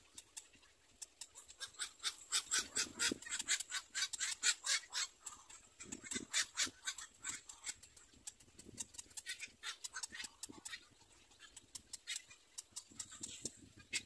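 Black-crowned night heron chicks at the nest giving rapid ticking begging calls. The calls come in bursts of quick clicks, several a second, loudest about two to five seconds in.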